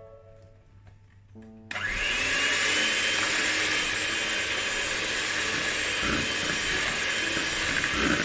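Electric hand mixer switched on nearly two seconds in, its motor whining up to speed and then running steadily as the beaters whip eggs into creamed butter and sugar.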